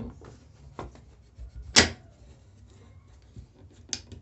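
A few separate knocks and clicks as a wooden workpiece is set into a homemade clamp and the clamp is tightened, the loudest knock about two seconds in.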